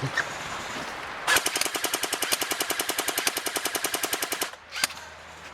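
Airsoft electric rifle firing a full-auto burst of about three seconds, at roughly fourteen shots a second, with one more single sharp click shortly after it stops.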